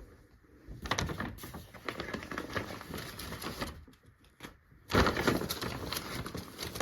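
Crinkling and rustling of packaging being handled, in two spells of rapid crackle: one from about a second in to nearly four seconds, and a louder one starting about five seconds in.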